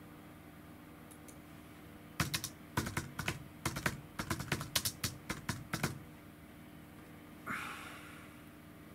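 Typing on a computer keyboard: a quick run of keystrokes for about four seconds, starting about two seconds in. A brief hiss follows near the end.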